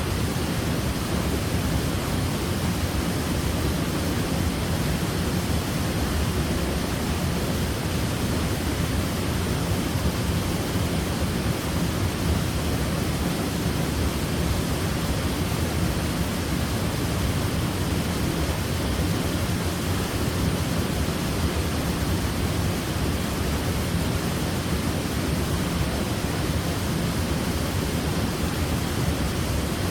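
Waterfall: falling water in a steady, even rush with no breaks, heaviest in the low range.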